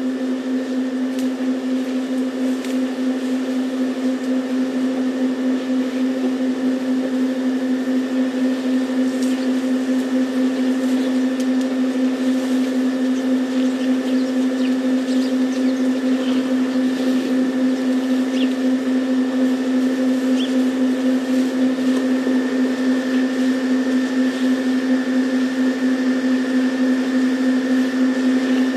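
A steady mechanical hum with an even, unchanging pitch, slowly getting a little louder, with a few faint short high chirps in the middle.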